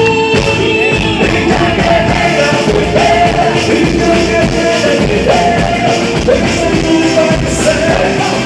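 Loud live boi-bumbá toada music with a dense drum beat and a melody line over it.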